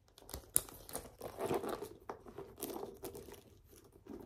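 Rustling and crinkling of packaging as a handbag is handled, with a sharp click about half a second in and several smaller clicks and knocks.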